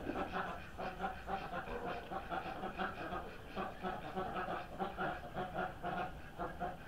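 Ducks chattering: a quick, steady run of soft, low quacks.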